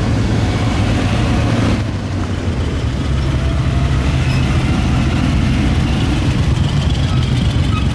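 A car engine running close by, a steady low rumble that eases slightly about two seconds in.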